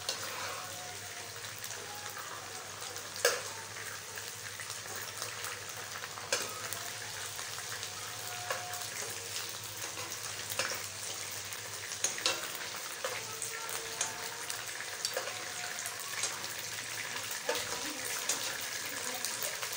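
Chicken pieces frying in hot oil in a wok, a steady sizzle, broken by scattered clicks and scrapes of a slotted spatula against the pan as the pieces are scooped out. The sharpest knock comes about three seconds in.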